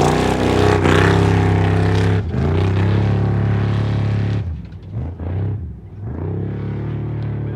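Off-road vehicle engine accelerating with a rising note, then holding steady. About four and a half seconds in it eases off and wavers briefly, then settles back to a steady run.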